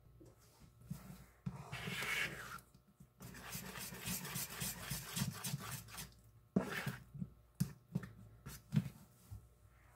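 Metal utensil stirring thick, lumpy batter in a plastic bowl: irregular scraping and rubbing, with a few sharp clicks of the utensil against the bowl in the second half.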